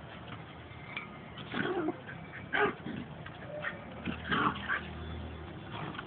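Two small dogs fighting, making several short bursts of dog noise.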